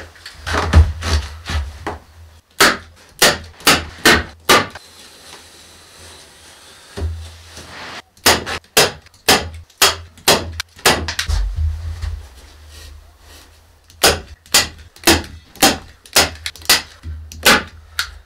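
Hand staple gun firing over and over, sharp snaps in quick runs of several, fastening mineral-wool insulation batts to wooden wall studs. Between the runs there is soft rustling and a few dull knocks as the batts are pressed into place.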